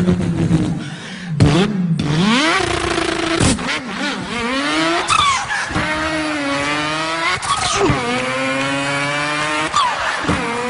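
A man imitating a car engine with his mouth, revving up through the gears. The pitch climbs, drops at each shift and climbs again, several times over.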